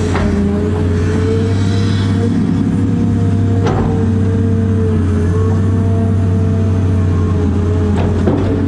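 Cat 330 excavator's diesel engine running steadily at working speed with a steady whine over it, heard from inside the cab while digging and backfilling dirt. A sharp knock sounds a little over a third of the way in and another near the end.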